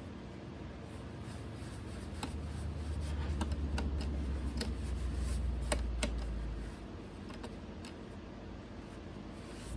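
Scattered light clicks and rubbing from hands at work on the guitar, wiping off squeezed-out glue and handling the clamp. A low rumble rises about two seconds in and cuts off near the two-thirds mark.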